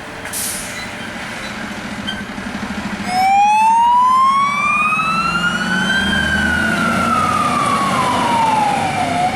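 A fire engine's engine runs, and then its siren comes on about three seconds in. The siren gives a slow wail that rises for about three seconds, falls for about three, then starts rising again near the end. There is a short hiss near the start.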